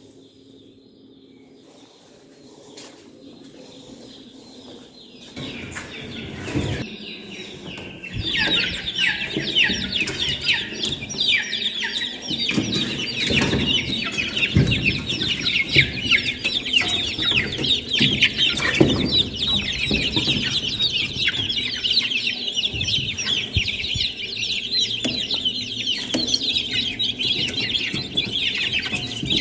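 A flock of chickens clucking and calling, faint for the first few seconds, then loud and busy from about eight seconds in.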